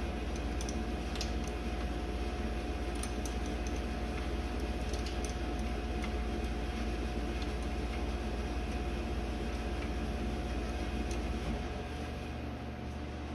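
Steady machine hum with a strong low drone, with a few faint light clicks scattered through it.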